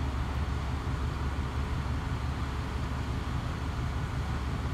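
Steady low rumble with a hiss over it: outdoor background noise with no distinct events.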